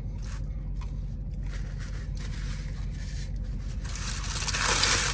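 Paper food wrapper rustling and crinkling as it is handled, with a few faint rustles first and then a louder, longer crinkle near the end. Under it is a steady low hum in the car's cabin.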